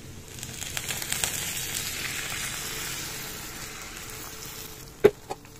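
Cold water poured into a hot kadai of oil, fried onions, potatoes and dry instant noodles, sizzling as it hits the hot oil. The sizzle swells within the first second and slowly dies away over about four seconds. A single sharp knock comes about five seconds in.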